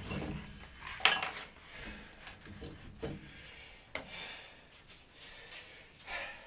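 Clanks and knocks of metal and wood being handled: a few separate strikes, the sharpest about a second in, with a short low rumble at the start.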